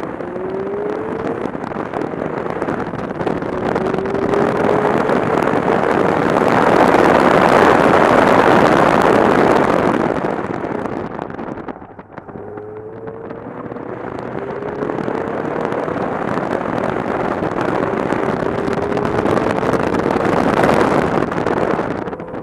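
Subaru BRZ's flat-four engine pulling hard through the gears, its note rising in pitch several times, under heavy wind rush on the outside-mounted microphone that swells with speed. The rush drops off about twelve seconds in as the car slows, then builds again.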